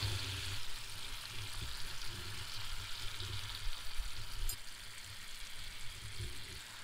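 Rainbow trout fillets frying in butter in a pan on a camp stove: a steady, soft sizzle with a low rumble underneath.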